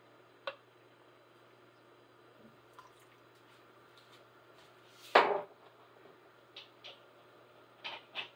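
Vinegar poured from a bottle into stock in a cast iron skillet: faint dripping with a few light clicks, and one louder knock about five seconds in.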